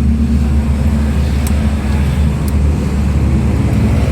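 Engine idling steadily, a low even rumble, with a couple of faint light clicks.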